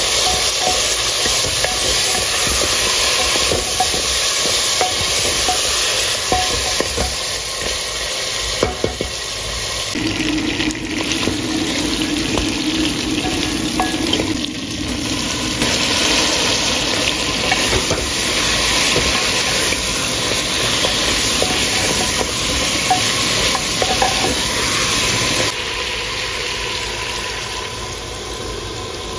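Pig's trotters sizzling as they fry in an aluminium pot, stirred with a wooden spatula that scrapes and taps against the pot. Near the end it turns quieter as meat stock is poured in.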